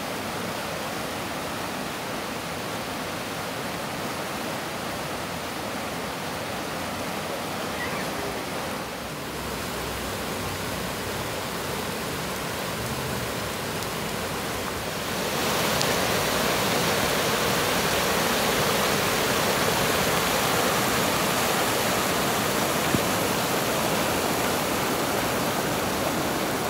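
Rushing floodwater pouring over and around a concrete low-flow creek crossing that is being overtopped, a steady roar of turbulent water. It grows louder and brighter about fifteen seconds in.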